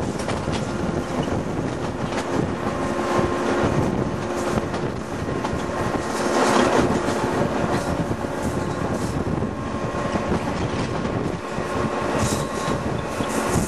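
Passenger train running along curving track, heard at an open window: a steady rumble of wheels on rails with wind noise. It swells louder about halfway through, with a few sharp rail clicks near the end.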